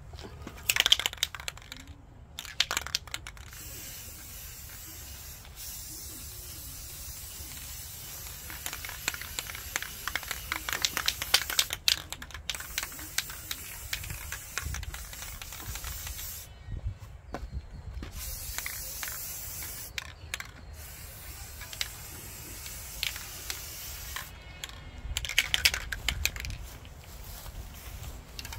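Aerosol spray paint can spraying in long hissing passes with a few short breaks. Brief clattering near the start and again near the end.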